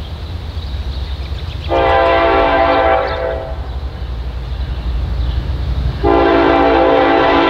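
Norfolk Southern locomotive's air horn sounding two long blasts as the train approaches: the first about two seconds in, lasting a little over a second, the second starting about six seconds in and still sounding at the end. A steady low rumble runs underneath.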